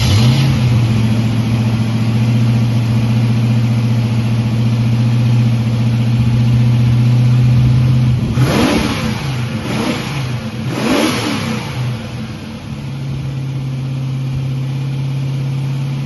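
TVR Chimaera's 4.0-litre Rover V8 running just after starting, idling steadily. About halfway through it is revved three times in quick succession, then it settles back to a steady idle.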